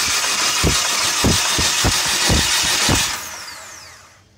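A Chrysler PT Cruiser GT's 2.4-litre turbo four-cylinder running with its valve cover off: a loud mechanical clatter with heavy, uneven knocks about twice a second. This is the diesel-like knock the owner took for lifter tick. About three seconds in the engine is shut off and winds down with a falling whine.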